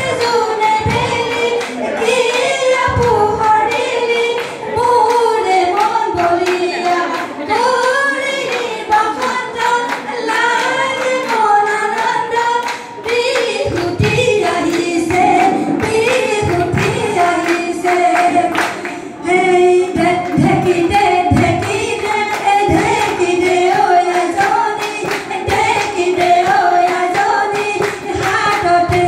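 Women's group singing an Assamese Bihu song, with steady rhythmic hand clapping keeping the beat.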